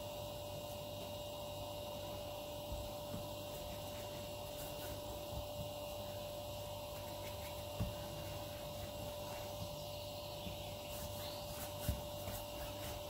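A steady electrical hum with a constant mid-pitched tone, under which a couple of soft thuds sound as hands handle dough on a countertop, one about eight seconds in and one near the end.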